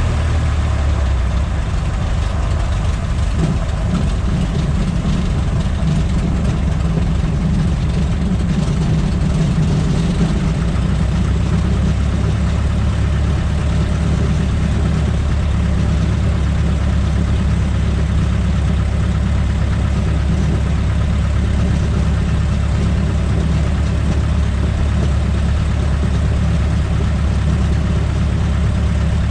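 Engine of a Cub light airplane running at low taxi power, heard from inside the cockpit, with the propeller turning. It runs a little faster for the first ten seconds or so, then settles to a steady idle.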